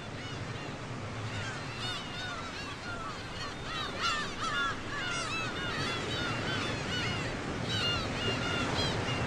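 A flock of birds calling over one another, many short arched calls repeating throughout, with surf washing on a beach underneath.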